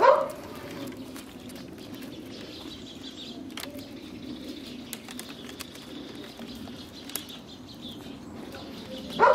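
Thin branches of a small tree rustling and ticking as a calico cat climbs through them, with a short, loud animal call right at the start and another near the end.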